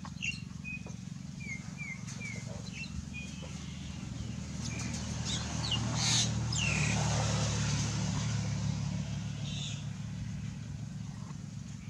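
A motor engine running steadily, its low hum swelling louder from the middle of the stretch and easing off near the end. Short, high, falling chirps repeat in the first couple of seconds and come again a few times later.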